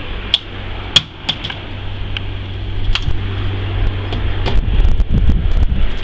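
Sharp clicks and knocks as the top cover of a Garrett air start unit is unlatched and lifted open, over a steady low hum; the handling noise thickens into a rumble of knocks in the last second and a half.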